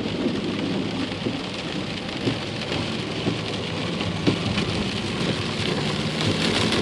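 Flood water splashing and spraying against a Skoda Yeti SUV as it drives through, a steady rush with many small patters, over a faint low hum of the engine.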